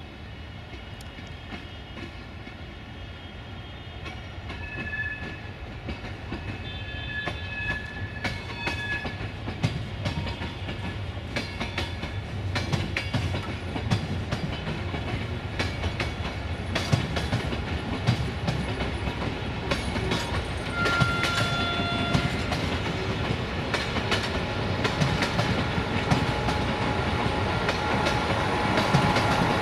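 A Romanian 060-EA1 class electric locomotive moves through the station on a shunting run, drawing closer. Its wheels click and clack over rail joints and points above a steady low rumble, with a few brief high squeals, and the sound grows steadily louder.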